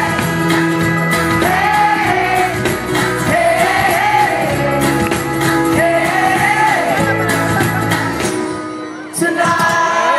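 Live pop-rock band playing the closing bars of a song, with a steady beat and wordless sung vocal phrases. The music fades out about eight seconds in, and about a second later the crowd breaks into cheering and whoops.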